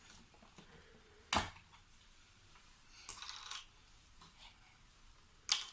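Play-Doh toys and tubs being handled during cleanup: a sharp click about a second in, a short light rustle around three seconds in, and another click near the end.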